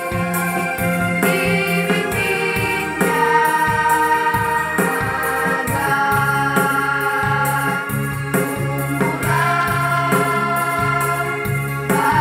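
A girls' choir singing held notes over an instrumental backing with a steady beat and a pulsing bass line.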